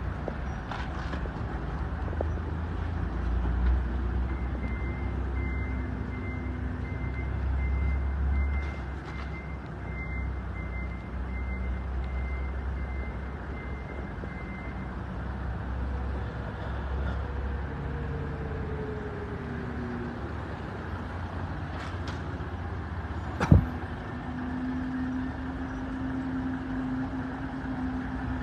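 Toyota Coaster minibus engines running in the street as a bus manoeuvres, a low steady rumble. A reversing alarm beeps about twice a second for roughly ten seconds in the first half, and a single sharp knock stands out about three-quarters of the way through.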